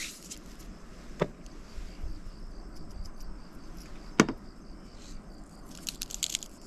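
Crickets chirping steadily, with a few sharp clicks and knocks; the loudest knock comes about four seconds in, and a quick run of light clicks comes near the end.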